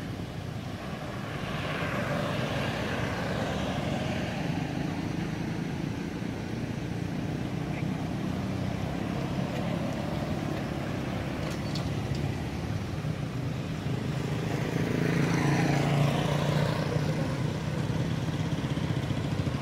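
Road traffic: a steady engine hum with motor vehicles passing by, one about two seconds in and a louder pass around fifteen seconds in.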